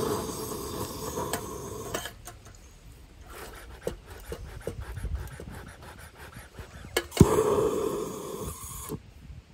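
Handheld torch blowing its flame into a bee smoker's paper and pine-cone fuel: a steady hiss that stops about two seconds in, then scattered light clicks and rustling. About seven seconds in, a sharp click as the torch is lit again and its hiss runs for about two seconds before cutting off.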